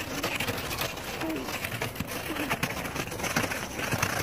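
Footsteps crunching through snow as people walk, several steps a second. A few short, soft calls with a bending pitch come about once a second behind the steps.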